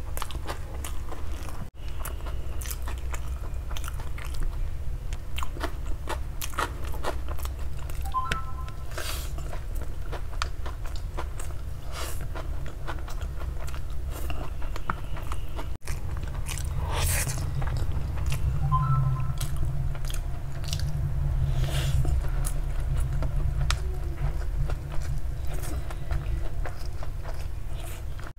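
Close-miked chewing of large mouthfuls of honey garlic chicken noodles, with wet mouth smacks and many small clicks throughout.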